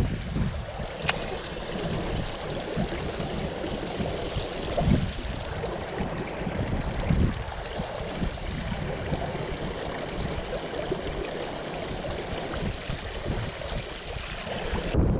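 Steady rush of water flowing through a concrete irrigation-canal gate, with wind buffeting the microphone in a low, wavering rumble. A single sharp click about a second in.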